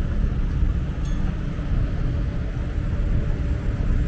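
Steady low rumble of city street traffic, with no distinct events.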